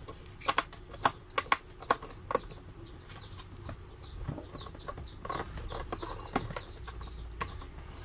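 A screwdriver working screws out of a coffee maker's plastic base, with a quick run of sharp clicks in the first two seconds or so, then softer handling. A bird keeps chirping in the background, with short high notes that fall in pitch, a few each second.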